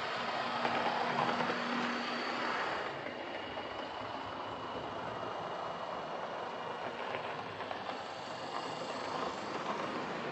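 Lima Class 31 OO gauge model diesel locomotive running round a model railway layout: its motor whirs and its wheels run on the track. It runs smoothly at a steady speed, with no pickup problems. The sound changes character a little under three seconds in.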